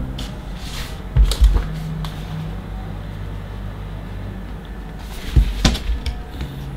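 Paper rustling and low handling thumps as a homemade printed comic with a hot-glued spine is handled and turned over, with bumps about a second in and again about five seconds in.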